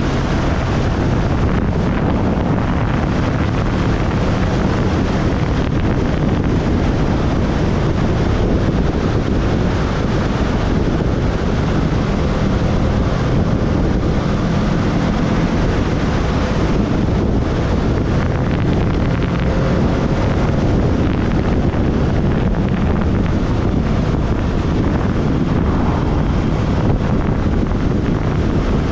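Wind buffeting the microphone over a motorcycle engine running steadily at road speed.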